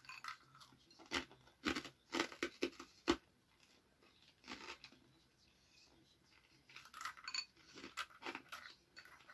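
Crunchy home-fried bread croutons being chewed close to the microphone: clusters of crisp crunches for the first three seconds or so, a lull, then more crunching near the end. The croutons are hard and tough to chew.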